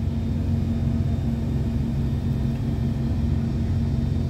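Steady low machinery hum from a tanker during cargo operations, the drone of its pumps and generators running without change.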